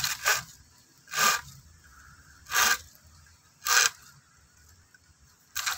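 Hand pruning saw cutting a side branch off a green bamboo culm: four separate saw strokes about a second apart, then quicker strokes begin near the end.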